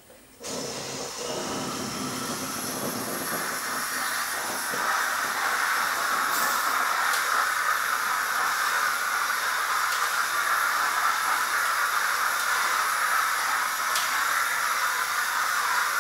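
Domotec DSC21 portable steam cleaner hissing steadily as it puts out steam for the floor head. The hiss starts suddenly about half a second in, grows a little louder about five seconds in, and cuts off abruptly.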